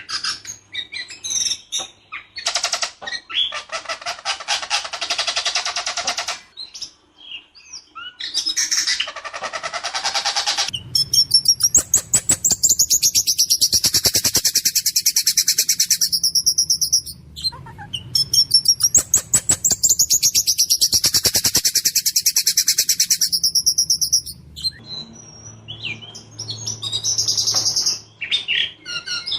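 Ciung batu (whistling thrush) singing: a few chirps, then long, very rapid machine-gun rattling trills in a harsh voice, repeated with short breaks. A faint low hum runs underneath.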